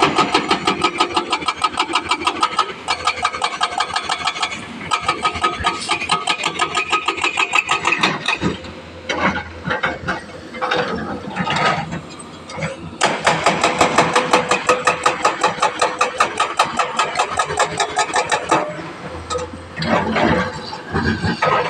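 Hydraulic rock breaker on a Sany excavator hammering rock in rapid, even blows, about ten a second. The hammering stops for a few seconds in the middle and briefly again near the end, leaving scattered knocks.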